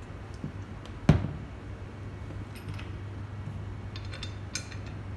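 Metal parts of a Flair 58 manual lever espresso maker knocking and clinking as they are handled and fitted together, with one sharp knock about a second in and scattered lighter clicks after it.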